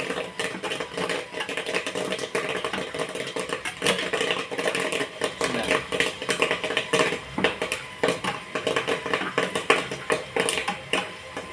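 Popcorn kernels popping in the stirred kettle of a popcorn machine: a dense run of quick, irregular pops over a steady hum from the machine. The batch is near the end of its cook.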